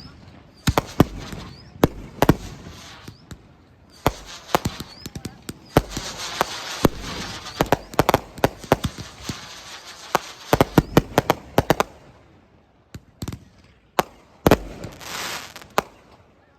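Fireworks going off in quick succession: sharp bangs of bursting shells over crackling and hissing. The bangs thin out about three-quarters of the way in, and a loud hissing burst comes near the end.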